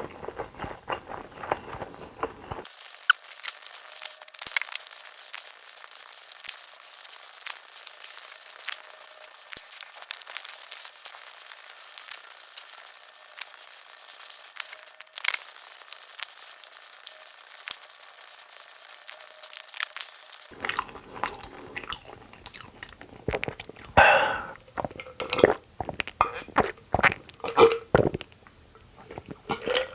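Close-miked eating: crunching and chewing, with many small crisp clicks. For most of the stretch the low end is cut away and it sounds thin; in the last several seconds the chewing comes through full and louder.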